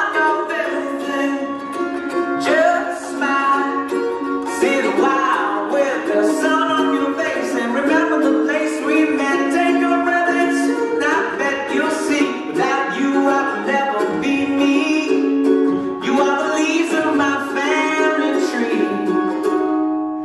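Recorded pop song playing an instrumental stretch without vocals: held notes under a run of plucked-string chords at a steady level.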